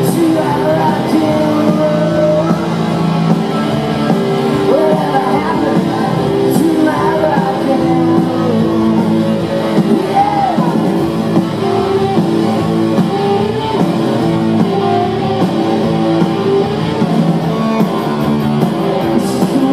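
Live rock band playing: a male voice singing over guitars and drums, heard from within the audience.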